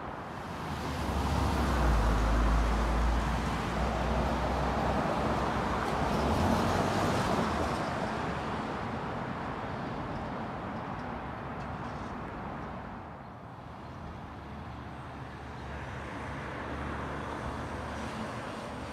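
Road traffic going by on a city street: a passing vehicle's rumble and tyre noise swells over the first couple of seconds and dies away after about eight, leaving a lower steady traffic background.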